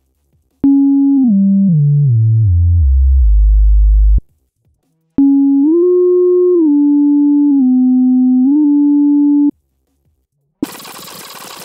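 Helm software synthesizer tone whose pitch jumps in discrete steps instead of gliding, with pitch smoothing switched off. A first note steps down in a staircase over about three and a half seconds. After a short gap a second note steps up, holds, then steps down and back up. A noisy hiss starts near the end.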